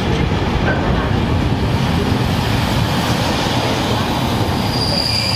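Freight train's wagons rolling past on the near track, a steady loud rumble of steel wheels on rail. Near the end, a high steady wheel squeal begins.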